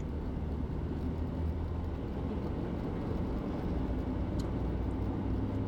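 Car driving at steady speed, heard from inside the cabin: a steady low engine and road hum with tyre noise.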